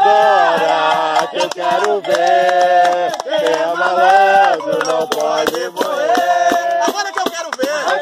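Voices singing an Umbanda ponto in long held notes, over an atabaque hand drum struck by hand, with hand claps.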